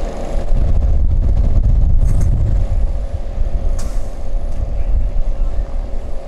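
A diesel bus driving past, its engine rumble loudest in the first three seconds and then easing off, with two brief high hisses about two and four seconds in.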